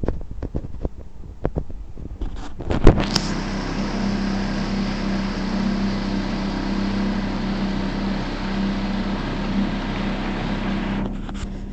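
Handling clicks and knocks for about three seconds, the last one sharp and loud. Then a small motorboat's engine runs steadily with an even hum.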